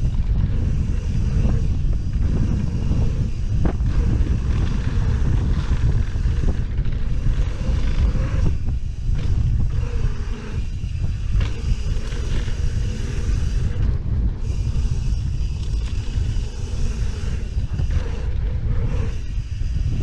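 Wind buffeting the microphone of a Trek Slash 9.9 full-suspension mountain bike descending a dirt trail at speed, over tyre noise on the hardpack, with a few sharp knocks and rattles from the bike.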